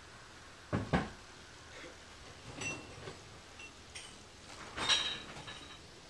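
Scattered knocks and light clinks, the loudest a double knock about a second in and another knock with a brief high ring near five seconds.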